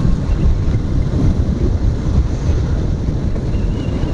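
Strong wind blast buffeting a phone microphone on a motorcycle at riding speed, a dense steady rumble that covers the bike's running underneath.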